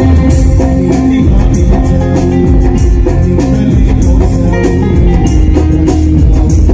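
A live band playing a Telugu Christian worship song on electronic keyboards and a barrel hand drum, amplified through stage speakers, with a steady beat and held keyboard notes.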